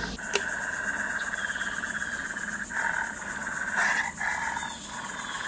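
Steady chirring of insects, with one sharp click shortly after the start. Near the middle and again around four seconds in come a few short sounds from the wolf-masked figure drinking from a beer can.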